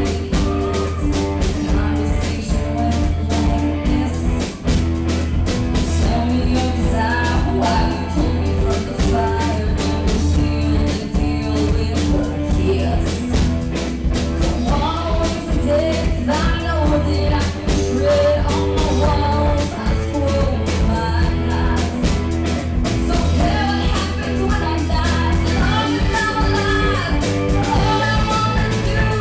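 Live rock band playing: a woman singing over electric guitar, bass guitar, keyboard and a drum kit keeping a steady beat.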